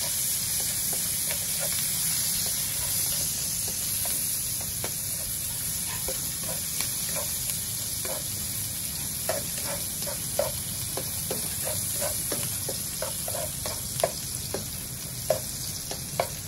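Crushed shallots and garlic sizzling in hot oil in a nonstick wok, with a steady hiss. A slotted spatula stirs and taps against the pan in short clicks, more often in the second half.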